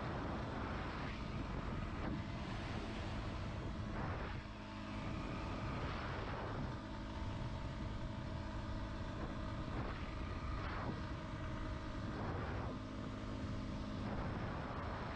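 Yamaha WR250R's single-cylinder four-stroke engine running while the motorcycle is ridden, with wind noise. The engine note shifts in pitch several times, about one, four, six and a half, ten and thirteen seconds in, as the throttle or gear changes.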